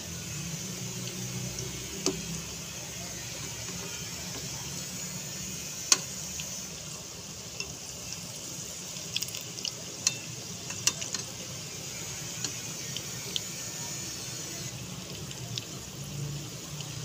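Gram-flour pakoras deep-frying in hot oil in a pot: a steady sizzling hiss with scattered crackles and pops, and a sharp click about six seconds in.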